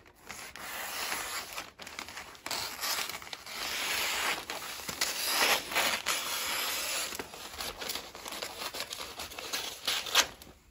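Scissors cutting through a long sheet of wrapping paper, with the paper crinkling and rustling as it is handled. A sharp knock comes near the end.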